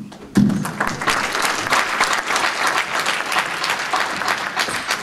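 Audience applauding: dense, steady clapping that sets in with a low thump about half a second in and starts to thin near the end.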